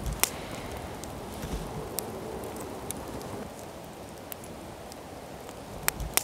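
Wood fire crackling in a small camp stove: a steady low hiss with scattered sharp pops, a few seconds apart.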